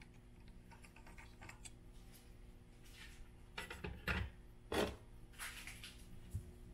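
Light clicks and clatter of a small hex driver and plastic RC differential parts being handled on a workbench, with louder knocks about four and about five seconds in.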